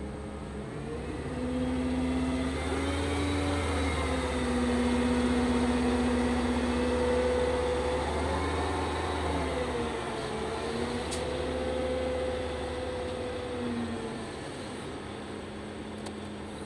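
Liebherr LTM 1120-4.1 mobile crane's engine and hydraulic drive heard inside the operator's cab as the superstructure slews on the joystick: a steady hum with a whining note that rises about a second in, dips and comes back around the middle, and eases off near the end.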